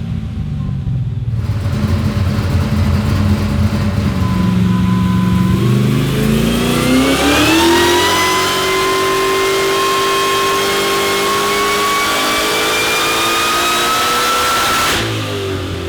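Supercharged 389ci GM iron-block LS V8 with a Harrop LSA-H2650i blower making a full-throttle pull on a hub dyno. A low steady rumble for about six seconds, then the engine note and blower whine climb steeply and keep rising slowly for several seconds before cutting off sharply near the end as the throttle closes.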